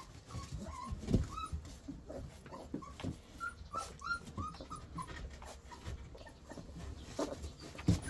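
Caucasian Shepherd puppy whimpering in short, high squeaks, again and again, with soft clicks in between, while it is fed a dewormer syrup it dislikes from a syringe.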